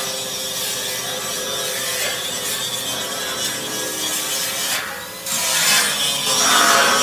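Angle grinder grinding steel on a truck bed's welded floor plate. The grinding grows louder and harsher a little past five seconds in.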